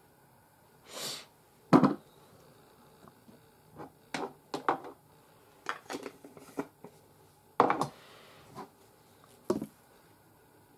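Small hard objects, makeup compacts and brushes, clicking and knocking as they are picked up and set down on a table, about eight sharp knocks scattered irregularly. A short hissing rush about a second in.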